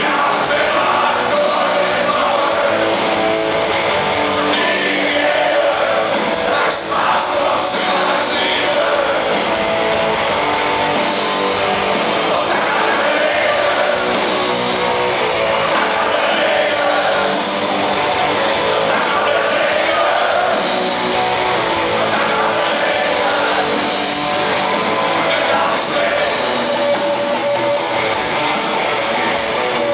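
Rock band playing live: electric guitars and a male lead vocal, recorded from within the audience in a hall.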